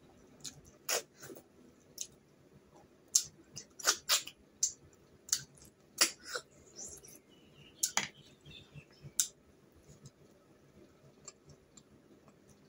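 Mouth sounds of snails being eaten from the shell: sharp, irregular sucking slurps and clicks, densest in the first nine seconds and thinning out after that.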